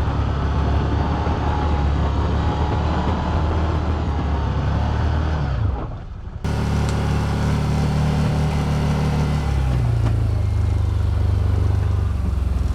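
Can-Am Commander 1000 XT side-by-side's Rotax V-twin engine running steadily. About five and a half seconds in, its note falls and fades, then comes back suddenly at full level, and it shifts pitch again near the end.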